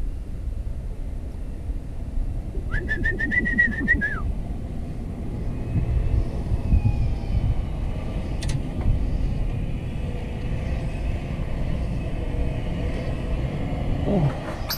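Case IH MXM175 tractor's diesel engine idling steadily, with a brief high chirping sound about three seconds in and a single click near the middle.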